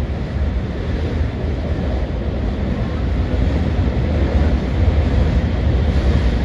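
Steady running rumble of a train crossing a steel truss bridge, heard from inside the carriage, slowly growing louder.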